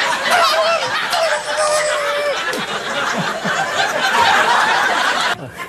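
Studio audience laughing, with a drawn-out vocal tone about two seconds in; it cuts off suddenly near the end.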